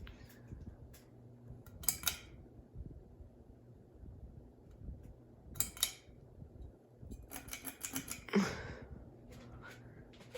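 Hampton Bay Littleton ceiling fan motor humming steadily. Over the hum come short bursts of clicking and rattling: one about 2 s in, one near 6 s, and a longer cluster of clicks near the end.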